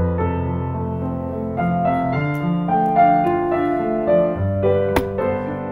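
Solo piano playing a slow ballad, one held note or chord after another, as background music. A single sharp click sounds near the end.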